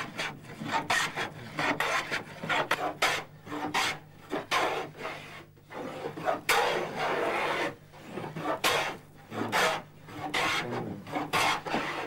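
A hand tool shaving and scraping a kiaat (Pterocarpus angolensis) board by hand, in repeated rough strokes at an uneven pace with short pauses.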